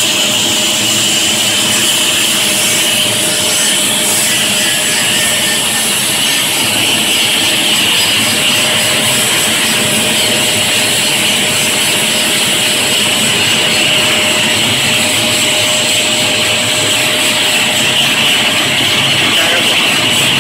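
Core-filled snack food extruder and its production line running: a steady machine drone with a constant high whine.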